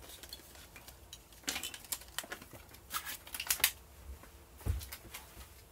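Light crinkles and sharp plastic clicks in a few short clusters as small super glue tubes are pulled from their blister pack, with one dull thump near the end.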